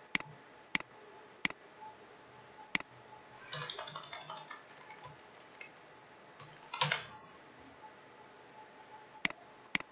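Computer mouse clicks and keyboard typing: several single sharp clicks, a short run of keystrokes about three and a half seconds in, and another brief burst of keys near seven seconds.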